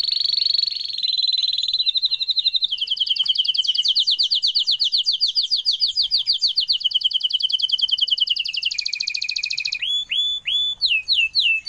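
A songbird singing a fast, even trill of repeated high notes, about ten a second, sliding slowly down in pitch; near the end it drops lower and then breaks into a few separate rising whistles.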